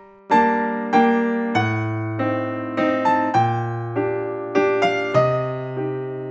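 Background piano music: a slow, gentle melody over held bass notes, a new note or chord struck roughly every half second to second, each fading away.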